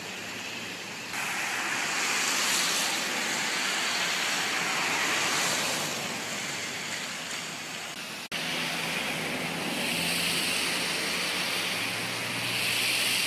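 Floodwater rushing in a small stream that has overflowed its banks, a steady noise that gets louder about a second in. The sound cuts out for an instant a little after eight seconds.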